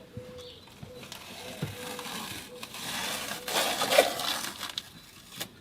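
Rustling and scraping from parts and packaging being handled, with a few light knocks. It swells about three and a half seconds in, with a sharp click near the end of the swell.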